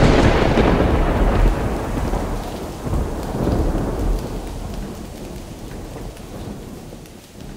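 Thunderstorm sound: rolling thunder over rain, with rumbling swells about three to four seconds in, fading out gradually.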